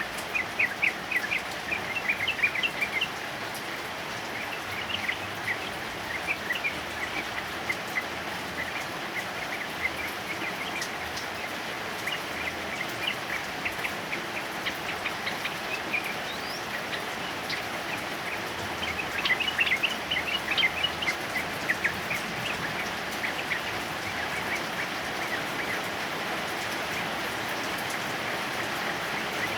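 Steady heavy rain, with a yellow-vented bulbul (trucukan) singing over it in bursts of rapid chattering notes. The birdsong is loudest about two-thirds of the way through.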